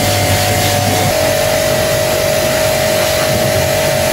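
Portable electric pressure washer running with a steady whine while its water jet hisses against a motorcycle. The whine steps slightly lower about a second in.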